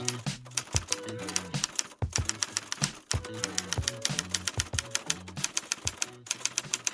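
Typewriter key-click sound effect, several rapid clicks a second with brief pauses, for on-screen text typing out. Under it runs background music with a repeating low melody.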